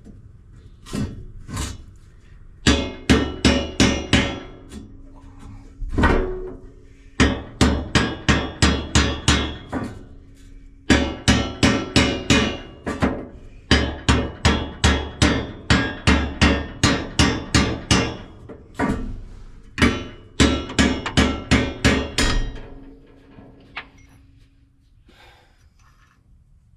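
Hammer striking steel in quick runs of blows, about five a second, with short pauses between runs and a faint ringing note: knocking combine shoe auger bearings off their shafts.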